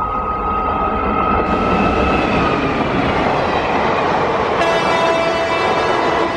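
Indian Railways express passenger train passing at speed, its coaches clattering on the rails. The electric locomotive's horn sounds one long steady note that fades out about three seconds in.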